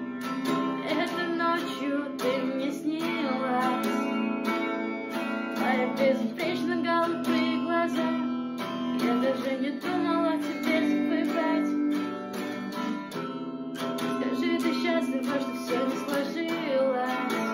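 A song: strummed acoustic guitar with a voice singing over it.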